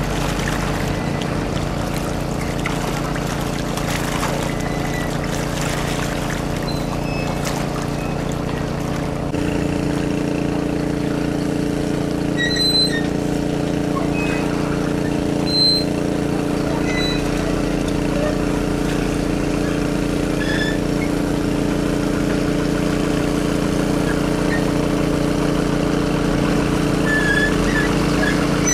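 A crane's engine running steadily as it hoists a net basket of fish, with water splashing and dripping over it in the first several seconds. About a third of the way in, the engine note steps up and holds stronger. A few short high chirps sound in the middle.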